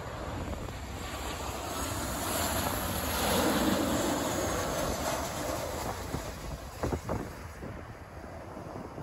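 Jet engines of a Boeing 737 on final approach passing low overhead: a rushing jet noise that swells to its loudest about three to four seconds in, with a high whine falling in pitch as it goes by, then fades. Wind buffets the microphone with a few short gusts near the end.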